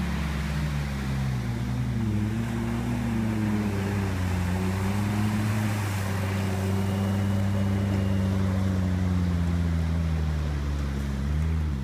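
Quadski amphibious quad bike's engine running steadily at speed over a rushing hiss. Its pitch eases down in the first second, holds with small wavers, then drops away at the very end.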